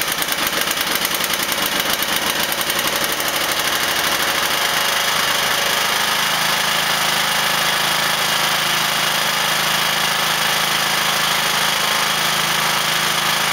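Briggs & Stratton Intek OHV lawn-tractor engine running, first at a slow idle with distinct even firing pulses, then throttled up about five seconds in to a smoother, faster steady run. This is the test run after its flooding Nikki carburetor was repaired.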